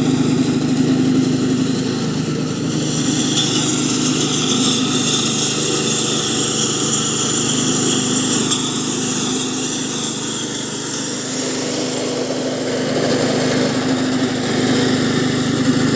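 Small petrol engine of a MaxGreen cylinder (reel) lawn mower running steadily under load while cutting grass.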